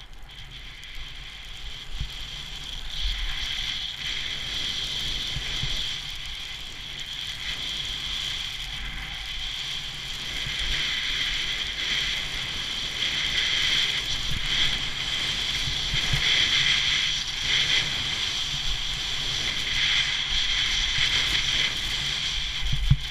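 Skis hissing and scraping over snow on a downhill run, with wind rumbling on the camera microphone; it grows louder over the first few seconds as speed builds.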